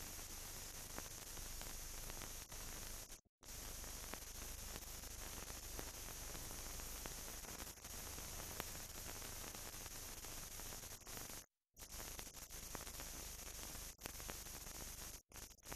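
Steady hiss and low hum of a silent film transfer, with no sound from the scene itself; it cuts out completely for a moment about three seconds in and again about eleven and a half seconds in, with a few faint clicks.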